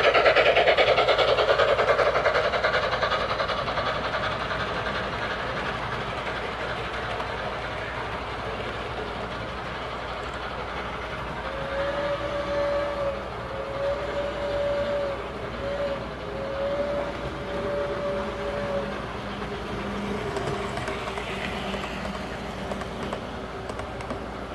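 Soundtraxx sound decoder of an O-scale Northern Pacific Q-3 steam locomotive model, playing running sounds from its speaker. A running noise fades over the first few seconds. About halfway through, the whistle sounds long, long, short, long, the grade-crossing signal.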